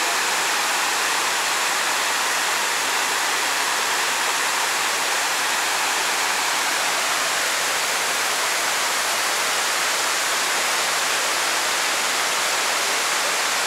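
Water falling down the walls of the 9/11 Memorial's south reflecting pool: a steady, even rushing of a wide man-made waterfall.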